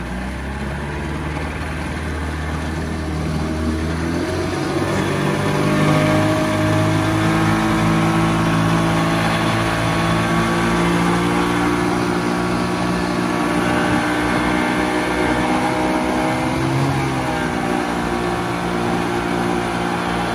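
Small boat's outboard motor running under way. It speeds up over the first few seconds, then holds steady with a rushing hiss over it, and its pitch dips briefly and recovers near the end.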